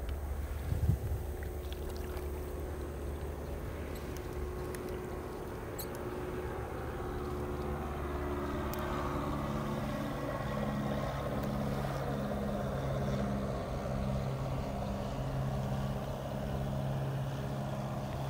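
A distant engine droning steadily, growing somewhat louder and fuller about halfway through, with a beating, pulsing tone in the drone; a brief bump or rustle about a second in.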